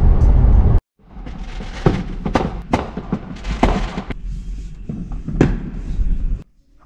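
Aerial fireworks going off, heard from inside a car: a run of irregular sharp bangs and crackles over a low rumble, after a brief moment of background music at the start.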